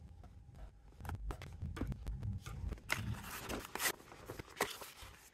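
Cardboard product packaging being opened: scissors slitting the box's seal, then the scrape and rustle of the paperboard inner box sliding out of its sleeve, with many small clicks and taps.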